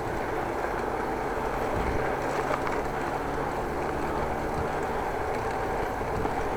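Steady road noise of a moving bicycle heard from an action camera: wind rushing over the microphone and tyres rolling on the road, with a faint low steady hum underneath.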